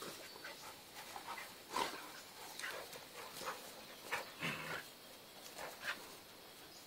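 A Great Dane and two other dogs play-fighting: scattered short scuffling and mouth noises in irregular bursts, the loudest a sharp one about two seconds in.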